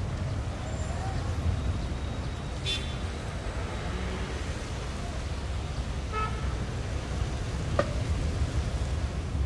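City street traffic: a steady low rumble of passing vehicles, with short car-horn toots about three seconds in and again about six seconds in.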